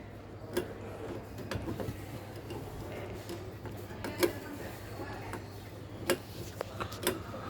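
Scattered light clicks and knocks of a screw being driven into a smart door lock's mounting plate, over a low steady hum.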